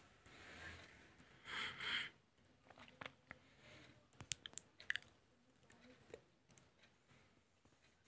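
Near silence: room tone with a soft rustle about a second and a half in, then a few faint clicks and ticks between three and five seconds in.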